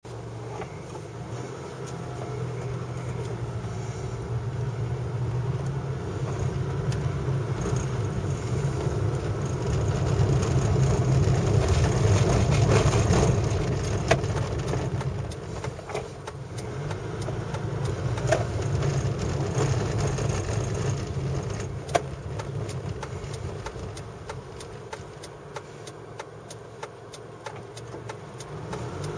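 A car's engine and tyre noise, heard from inside the cabin while driving. It swells to its loudest about twelve seconds in, dips, rises again and eases off near the end. Two sharp knocks stand out, about 14 and 22 seconds in.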